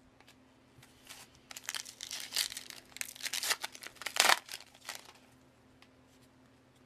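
Foil trading-card pack wrapper crinkling and tearing as it is ripped open by hand, in a run of quick crackles with the loudest rip about four seconds in.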